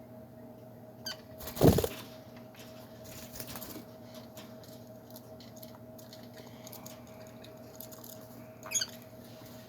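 Lovebirds moving about in a cage: faint scratching and pattering, a short high chirp about a second in and another near the end, and one loud brief rustle or thump just before two seconds in, over a steady low hum.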